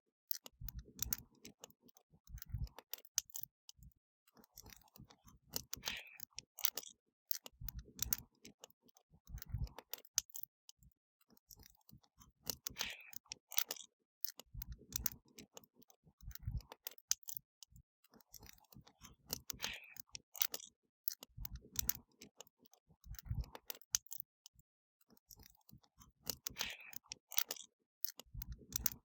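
Wood fire crackling and popping: a dense run of sharp snaps with a low thud now and then. The same stretch of crackle repeats about every seven seconds, a looped recording.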